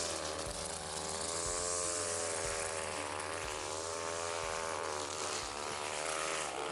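Gas string trimmer (weed eater) running with a steady buzz, its pitch wavering slightly as it cuts.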